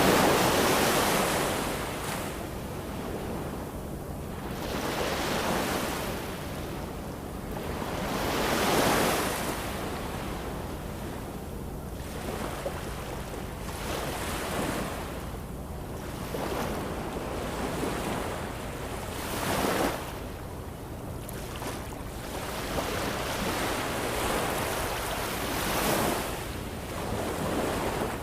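Ocean surf: waves surging and washing back in a hiss that swells and fades every few seconds. The biggest surge comes right at the start.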